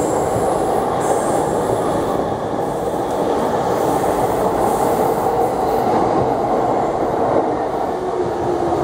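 Yamanote Line E231-series electric commuter train running past at close range, a steady loud rush of wheels on rails. A steady pitched whine comes in near the end.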